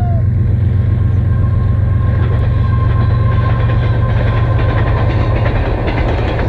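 Puch Maxi moped's single-cylinder two-stroke engine running steadily at riding speed with wind noise, while a freight train runs past alongside. A thin steady tone fades out about four seconds in.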